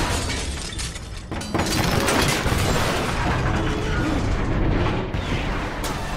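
Action-film sound effects: dense mechanical clatter and rumbling booms, with a musical score underneath. It dips briefly about a second in, then surges back loudly and suddenly.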